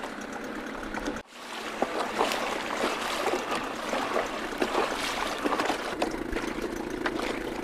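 Water splashing and lapping against a small boat's hull in irregular slaps. A steady low hum, like a small boat's motor running, comes in at about six seconds.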